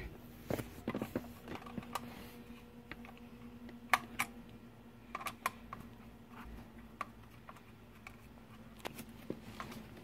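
Scattered light clicks and taps of small plastic parts and a Torx screwdriver being handled as a replacement convertible-top switch is screwed onto its console panel, over a faint steady hum.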